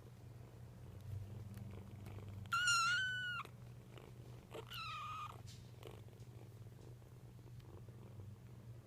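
Foster kittens purring steadily, broken by two high-pitched mews: a longer one about two and a half seconds in, and a shorter, falling one around five seconds.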